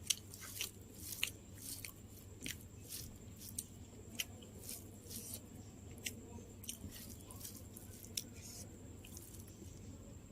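A person chewing and biting food close to the microphone: irregular wet mouth clicks and small crunches, thicker in the first half and thinning out toward the end.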